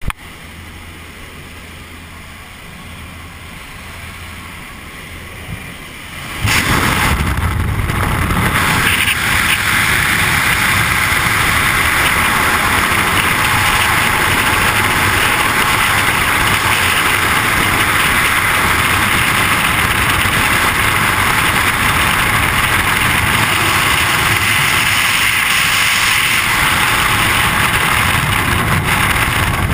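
Jump plane's engine drone heard inside the cabin at the open door. About six and a half seconds in it gives way to loud, steady wind noise over a helmet camera's microphone as the skydivers fall in freefall.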